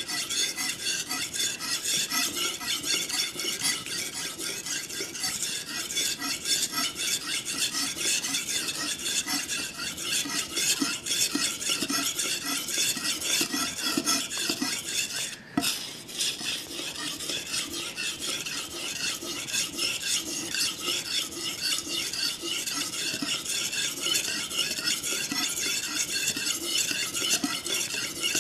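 Steel kitchen knife blade stroked back and forth on a water-soaked whetstone: a steady run of rapid gritty scraping strokes, with a brief pause about halfway through.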